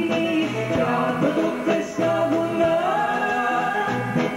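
A woman singing into a microphone over live stage music, holding long notes with a step up in pitch about three seconds in.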